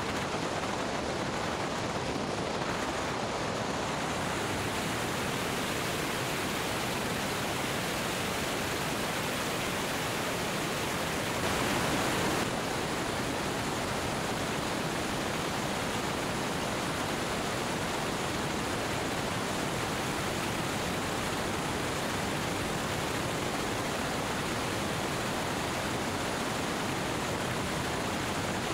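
Steady rush of wind buffeting the microphone of a camera mounted outside, under the belly of a Cessna 205, at runway speeds, with a brief louder surge about twelve seconds in.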